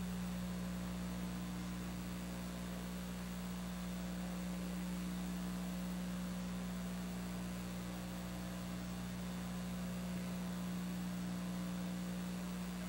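Steady low electrical mains hum with an even hiss behind it, from the sound track of an old videotape recording. No race sounds stand out.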